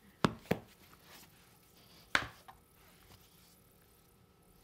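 Three sharp taps on a hard surface, two in quick succession near the start and a louder single one about two seconds in, from album pieces and photocards being handled and set down.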